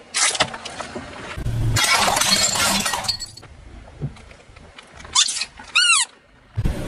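A car's tyre rolling over objects and crushing them: loud crunching and cracking in several separate bursts over a low engine rumble, with one short squeak near the end that dips and rises in pitch.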